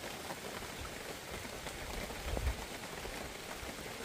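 Steady, even hiss of outdoor background noise with scattered faint ticks, and one dull low thump about halfway through.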